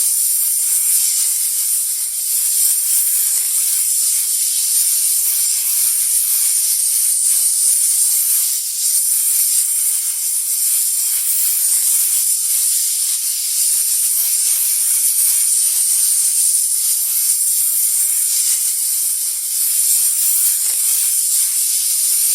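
Snake hissing: a continuous, high-pitched hiss that dips briefly a few times.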